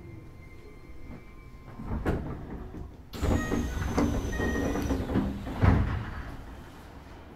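Inside a Keisei 3000 series commuter train as it comes to a stop at a station: a sudden rush of noise about three seconds in, the doors sliding open with a loud clunk near six seconds, then a low steady cabin hum.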